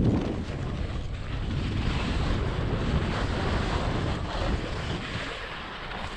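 Wind rushing and buffeting over a helmet camera's microphone during a downhill ski run, a steady loud rumble, with the hiss of skis sliding over firm, crusty snow.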